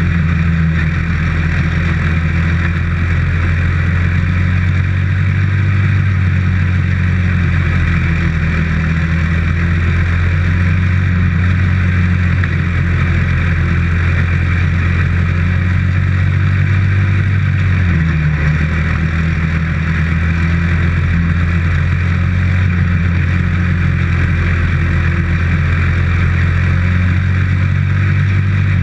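Dirt-track race car's engine running steadily at a constant, moderate speed, heard from inside the cockpit. The pitch drops a little about 18 seconds in and then holds.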